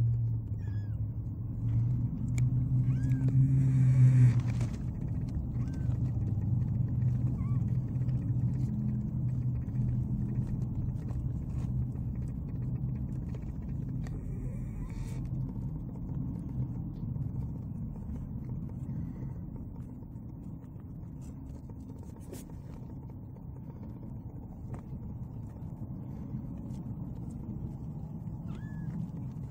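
Kittens under three weeks old purring in a low steady rumble, louder in the first half, with a few faint short mews.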